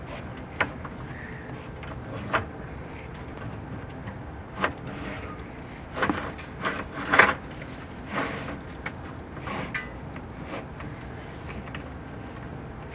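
Chimney inspection camera and its push rods knocking and scraping against the flue walls as the camera is worked and spun down the flue: irregular sharp clicks and knocks with a few short scrapes, the loudest cluster a little past the middle, over a steady low rumble.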